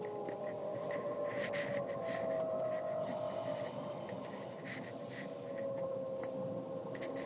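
A whine from a 2001 BMW E46 325i, two tones that slowly waver in pitch, with faint ticks over a steady noise. It is the noise the car makes only when cold, which the owner suspects comes from the transmission.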